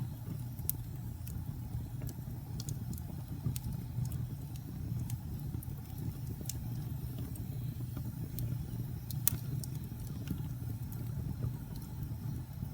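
Fire crackling in a fireplace: scattered sharp pops and snaps over a steady low rumble, with the loudest pop about nine seconds in.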